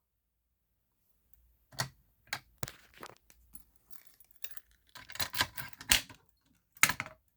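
Silent for about a second and a half, then irregular sharp clicks and rattles of a manual fire alarm pull station being handled and tugged down, busiest about five to six seconds in.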